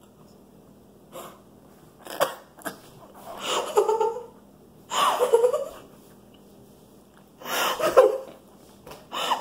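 Several short, wordless bursts of girls' laughter and wheezing, gasping breaths, separated by quiet gaps of a second or so.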